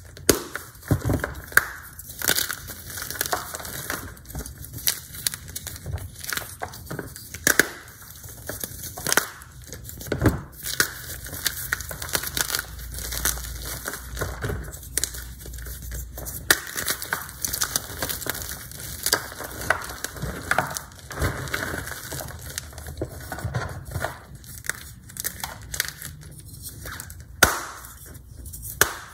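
Hard blocks of Z-Athletic gym chalk being squeezed and crushed by hand into powder: dense, irregular crunchy crackling and crumbling, with a loud sharp snap near the end as a block is broken apart.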